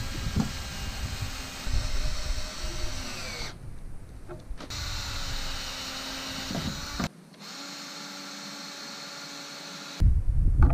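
Cordless drill driving decking screws through a plywood gusset into a 2x4 frame, the motor whining steadily in runs of a few seconds with short pauses. The pitch sags as a screw pulls tight about three seconds in.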